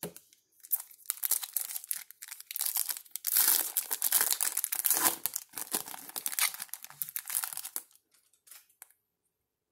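Foil trading-card pack wrapper torn open and crinkled by hand, a dense crackling that is loudest in the middle and stops about eight seconds in, followed by a few faint ticks.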